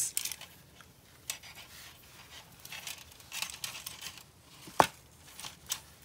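Hands sorting a bundle of thin model wiring on a plastic panel: faint rustling and light ticks of wire and small plastic connectors, with one sharper click a little under five seconds in.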